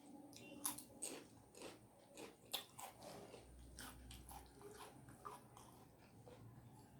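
A person chewing a rice-and-curry meal with close-up mouth sounds: irregular soft clicks and crunches, thicker in the first half and sparser toward the end.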